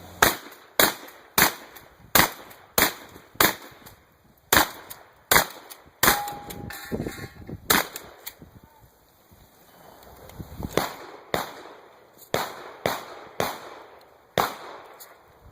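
Winchester 1300 pump-action shotgun fired in rapid strings, shots roughly half a second to a second apart. A burst of about a dozen shots, a pause of a couple of seconds, then another string of six.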